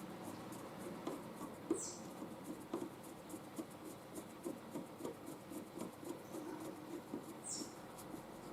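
Faint, irregular light ticks and scratches of hand work with small metal parts and screws, as an earth-link screw is fitted into a tapped hole. A brief high chirp sounds twice, about two seconds in and near the end.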